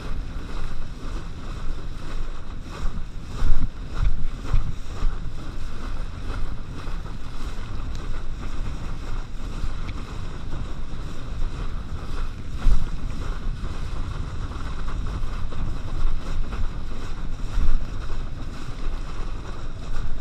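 Wind buffeting the microphone and water rushing under a kneeboard towed at speed through a boat's wake, with irregular louder low gusts.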